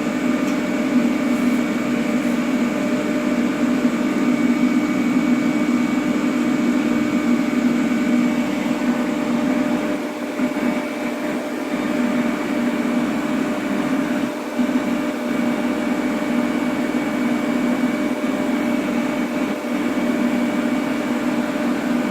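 AC TIG welding arc on aluminum, a steady buzzing hum with a hiss, as filler rod is added to build up the worn aluminum.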